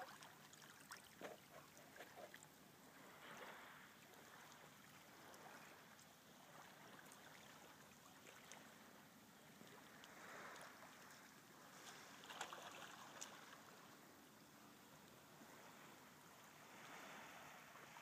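Faint lapping and trickling of calm shallow seawater against rocks at the shoreline, swelling softly every few seconds.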